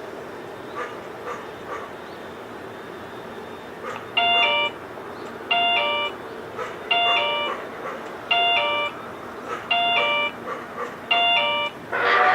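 Railroad level-crossing warning alarm starting up about four seconds in: an electronic two-tone chime rings six times, about one and a half seconds apart. Near the end a louder sound with several steady tones cuts in.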